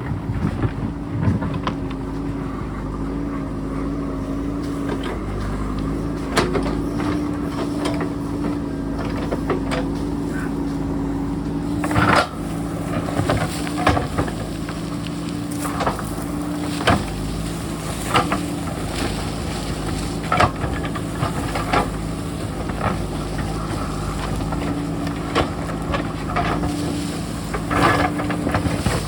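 JCB backhoe loader's diesel engine running steadily while the bucket works rock, with repeated knocks and clatters of stone against steel and one louder bang near the middle.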